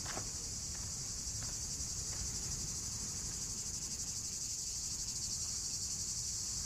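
A steady, shrill chorus of cicadas, a high continuous pulsing buzz, over a low steady rumble.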